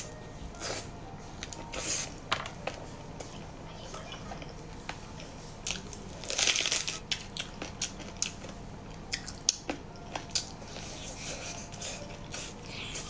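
A person eating close to the microphone: crisp crunching bites and chewing, scattered throughout, with a dense run of crunching about six seconds in as a raw scallion stalk is bitten.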